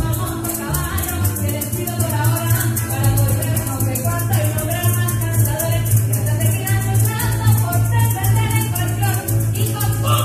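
Llanera (joropo) music: a harp with a fast, steady shake of maracas over a bass line, with a singing voice.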